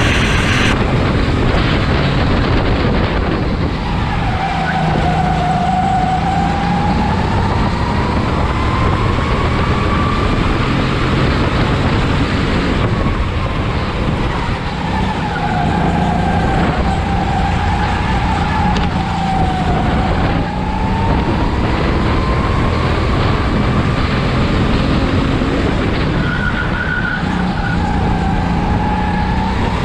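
Go-kart engine heard onboard, its pitch rising as it revs out along the straights and dropping off into the corners several times. It runs over a constant rush of wind and tyre noise.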